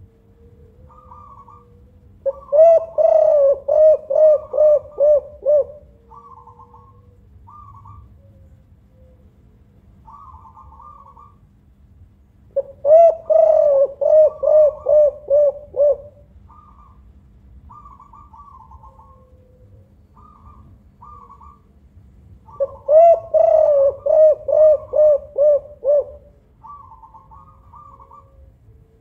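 Spotted dove cooing in three loud bouts about ten seconds apart, each a quick run of about eight pulsing coo notes. Fainter, higher chirps come between the bouts, over a steady low hum.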